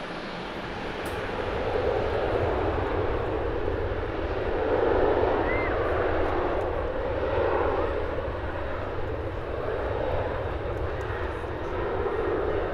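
Jet airliner engines running, a steady noisy rumble that grows louder about two seconds in and then holds.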